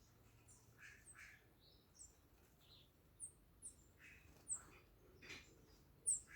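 A mix of birds calling: scattered short, high chirps and some lower calls, with one sharp chirp, the loudest, near the end.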